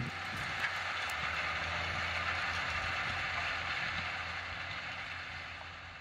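Tractors pulling 4AG DV950 and DV980M offset disc harrows through soil: a steady low engine drone under the mechanical clatter and hiss of the disc gangs working the ground, fading out over the last couple of seconds.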